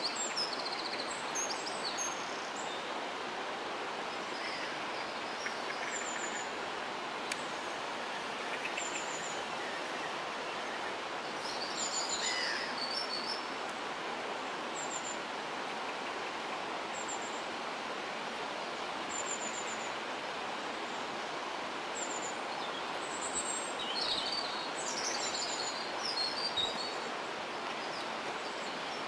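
Small birds chirping and singing in short, high phrases, loudest about twelve seconds in and again near the end, over a steady outdoor background noise.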